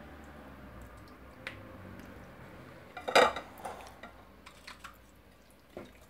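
Glass mixing bowl clinking and knocking as a raw stuffed chicken is handled in it. There are scattered light clicks and one louder clatter about three seconds in.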